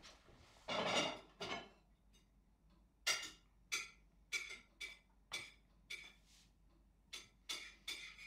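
Crockery and cutlery being handled out of sight: a short clatter about a second in, then a run of sharp clinks, roughly two a second.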